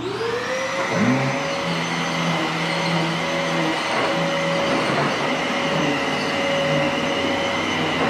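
A big, heavy vacuum cleaner switched on, its motor spinning up within half a second to a steady high whine. A lower hum joins about a second in, and then it runs evenly.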